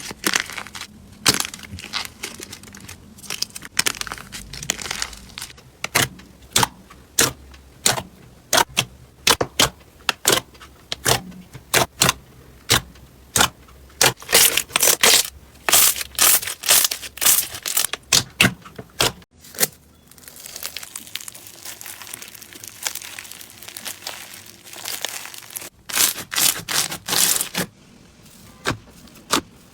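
Slime being pressed, poked and squeezed by hand, giving a run of sharp, irregular popping clicks several times a second. About two-thirds of the way through there is a softer stretch of squishing with few clicks, before the pops return.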